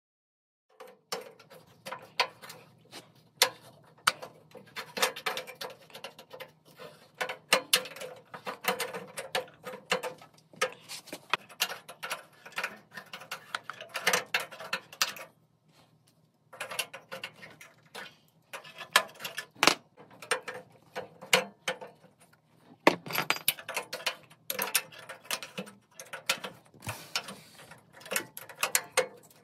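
Hand tools working on metal: irregular clicking, knocking and scraping in bursts, starting about a second in, with short pauses partway through.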